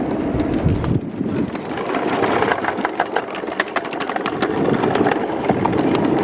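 Ride-on miniature railway car rolling on steel rails with a steady rumble, breaking into a rapid run of clicks and clacks about a second and a half in as the wheels cross the track work of a diamond crossing.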